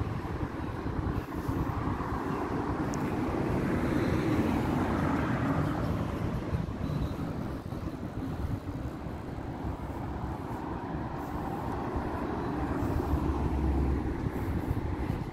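Street traffic: passing cars, the noise swelling about four seconds in and again near the end.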